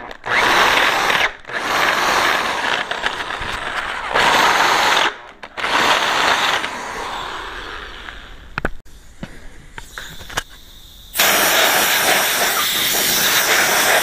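Electric drill with a 7/8-inch bit cutting into the aluminium case of a 46RE automatic transmission. It runs in three bursts with short pauses over about six seconds, then trails off. About eleven seconds in, a loud steady hiss starts suddenly.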